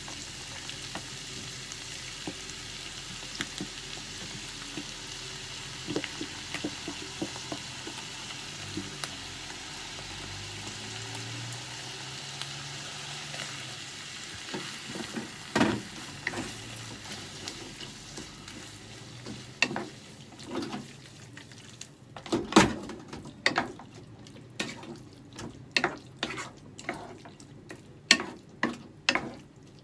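Sausage, onion, mushroom and bell pepper sizzling in a frying pan while a wooden spatula stirs them. After about twenty seconds the sizzle is fainter and the spatula knocks and scrapes against the pan several times a second.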